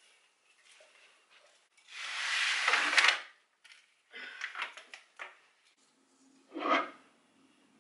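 Potted houseplants being handled on a shelf: a rustle of leaves and pot swelling about two seconds in and ending in a knock, then a quick run of clattering knocks as pots are moved and set down, and one more knock near the end.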